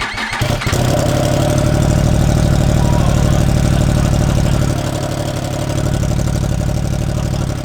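2023 Yamaha R1M's crossplane inline-four running steadily through its stock exhaust with the exhaust butterfly valve open. It gets a little louder about a second in.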